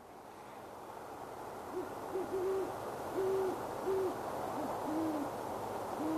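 A pair of great horned owls hooting back and forth in duet. A series of short, low hoots begins about two seconds in, some in quick clusters and others spaced apart, over a steady background hiss.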